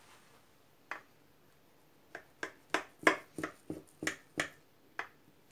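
Knife cutting through a baked cake's crunchy caramelized walnut topping in a glass dish, making sharp clicks: one about a second in, then a quick run of about a dozen from about two seconds in to about four and a half.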